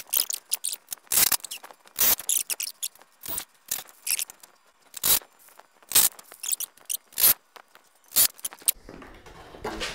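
A string of short, irregular scrapes and knocks, about a dozen brief sounds with no steady run of a motor, from a cordless drill and wooden boards being worked on a scrap-wood stand.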